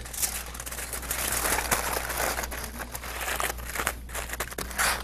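Aluminum foil crinkling and crackling in irregular bursts as a sheet is folded and crimped shut by hand into a packet.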